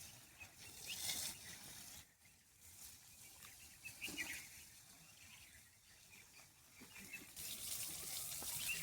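Faint outdoor ambience with a few short bird chirps now and then. A hiss grows louder near the end.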